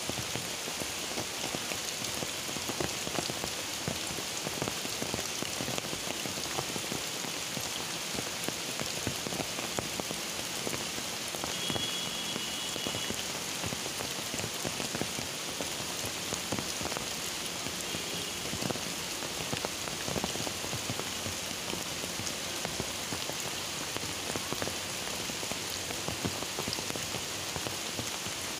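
Heavy, steady rain drumming on an umbrella overhead and falling into standing floodwater, thick with close individual drop hits.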